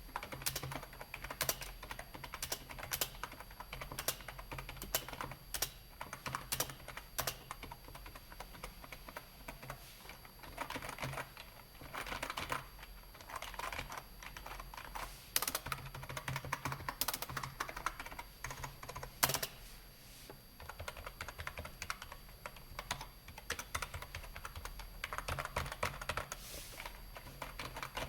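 Typing on a cheap K7880 membrane-style computer keyboard: a steady run of irregular soft key clicks, with a few louder single strokes. The keys are mushy and cave in when pressed.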